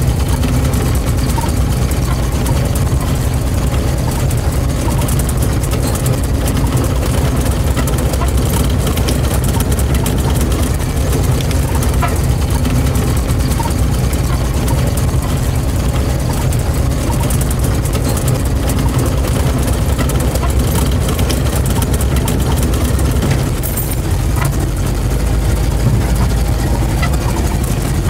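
UAZ-469B's 2.5-litre four-cylinder petrol engine running steadily, heard from inside the cab as the jeep crawls along a rough dirt track, with scattered knocks from the body and suspension.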